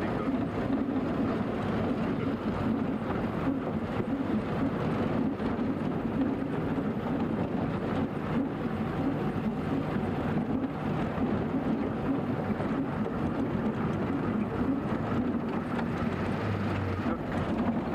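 Motor vehicle driving on an unpaved mountain road: steady engine and road noise heard from inside the vehicle.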